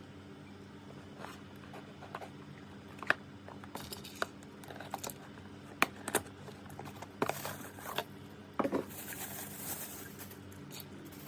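Hands opening a parcel: plastic packaging crinkling and rustling, with scattered sharp clicks and taps and a longer crinkling tear near the end.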